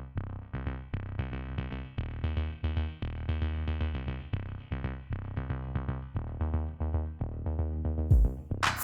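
Background music: an electronic track of quick, evenly paced synth notes, with drum hits coming in near the end.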